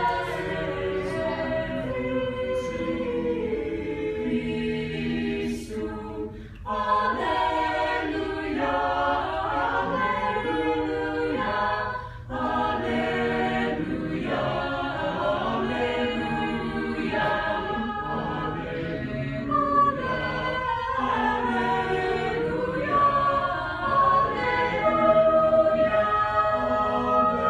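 A high school choir singing in several voice parts, with two short breaks between phrases about six and twelve seconds in.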